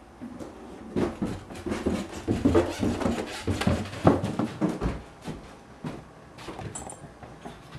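Footsteps going down wooden stairs: an irregular run of knocks starting about a second in and lasting several seconds, then lighter, scattered steps near the end.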